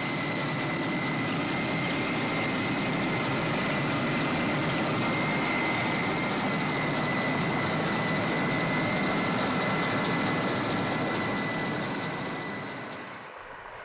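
Helicopter in flight: steady engine and rotor noise with a high whine and a fast regular rotor beat. It fades near the end and cuts off abruptly.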